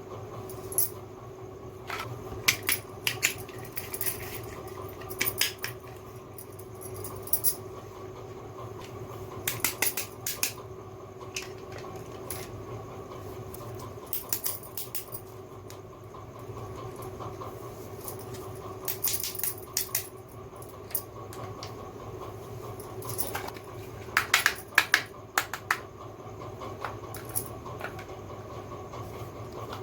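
Scattered light clicks and taps of small plastic toy kitchen pieces being handled, in small irregular clusters, over a steady low hum.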